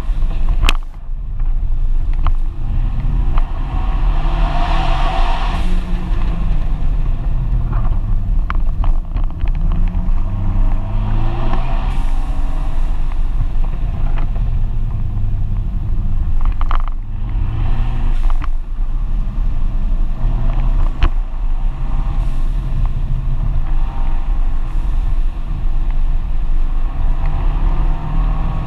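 FIAT 124 Spider Abarth's turbocharged 1.4-litre four-cylinder engine heard from the open cockpit on a winding drive, its pitch rising and falling again and again as the driver accelerates and lifts through the curves. Wind rushes over the cockpit, and there are a few sharp clicks.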